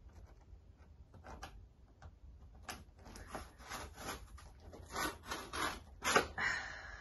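Scissors cutting into a cardboard box: a run of short rasping snips and scrapes, sparse at first and busier and louder from about halfway.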